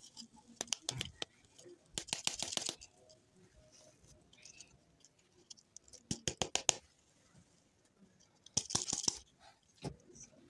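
Plastic lollipop toy balls being handled and turned over in the hands, clicking and rustling in several short bursts of rapid clicks.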